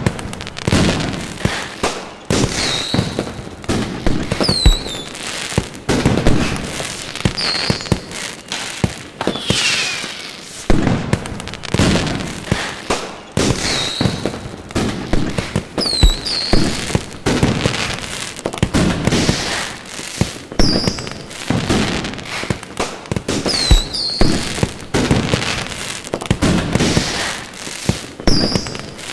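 Fireworks display going off continuously: a dense run of bangs and crackling, with short high whistles from rising shells every few seconds.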